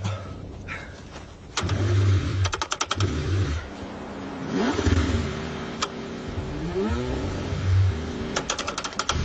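Cold car engine being cranked and struggling to start, with quick runs of clicks about two seconds in and near the end, and short bursts of engine sound that rise and fall in pitch.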